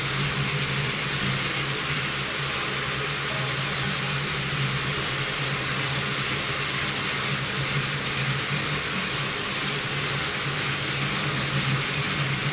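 Several battery-powered Plarail toy trains running together on stacked plastic spiral track, a steady mechanical running noise with no breaks.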